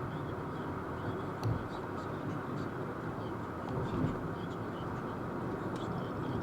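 Steady road noise of vehicles travelling at freeway speed, with a few faint light ticks and a couple of small thumps, about one and a half and four seconds in.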